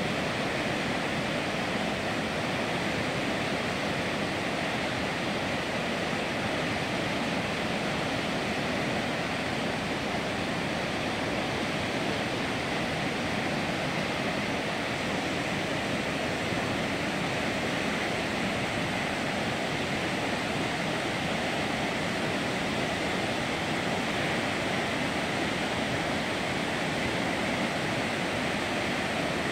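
Floodwater of a creek in spate rushing steadily past a bridge, a continuous even noise with no break or change.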